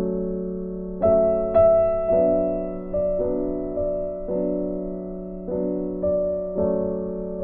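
Background piano music: slow, gentle chords struck one after another, each left to fade.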